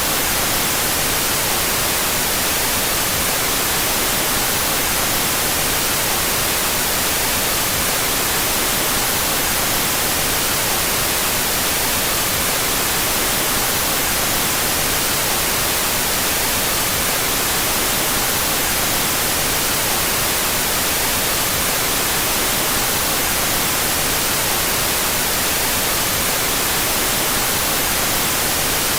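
Steady, unbroken white noise, an even hiss weighted toward the treble, with its two stereo channels out of phase.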